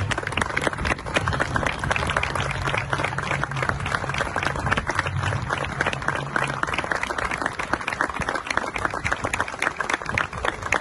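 Large crowd clapping, many hands at once in a dense, continuous patter, with a low steady hum underneath that stops about two-thirds of the way through.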